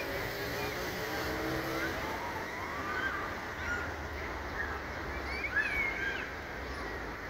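Street traffic ambience: a steady rumble of passing vehicles, with a humming engine note in the first couple of seconds. Birds call several short chirps over it, most of them about five to six seconds in.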